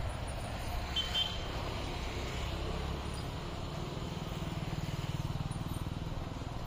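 A motor vehicle's engine running close by: a steady low rumble that swells a little about four seconds in.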